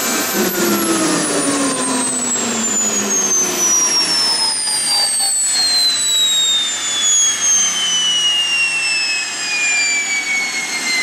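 Rover/Lucas gas-turbine ground power unit winding down after being switched off: its turbine whine falls steadily in pitch, starting just after the beginning, with exhaust rush underneath.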